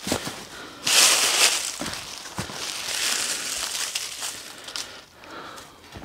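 Dry leaf litter rustling and crunching as it is disturbed, loudest from about one to one and a half seconds in, then continuing more softly.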